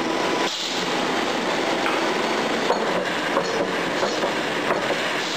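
HLDS-630T screw press for refractory bricks and its workshop running: a steady rattling mechanical noise with a few short knocks from about halfway through.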